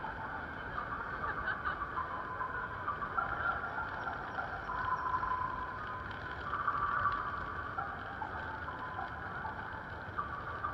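Busy city street ambience at a crowded pedestrian crossing: a steady mix of traffic noise and crowd sound, with a busier band in the middle range swelling a couple of times.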